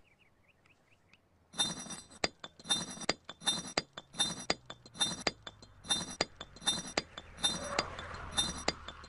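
A series of about nine sharp, ringing clinks, evenly spaced a little under a second apart, starting after a short quiet moment.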